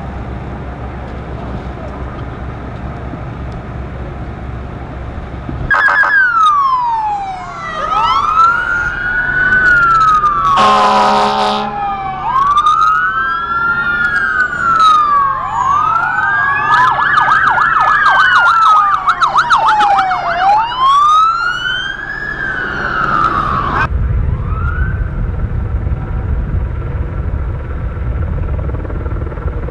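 Sirens of several emergency vehicles, including a fire department ambulance, wailing and yelping over one another, their pitch sweeping up and down, with a short horn blast about eleven seconds in. The sirens start and stop abruptly, with a low steady rumble before and after.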